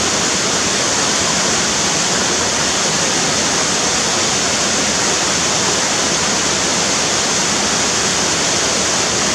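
Steady, loud rushing of water, an even roar with no changes, cutting off abruptly at the end.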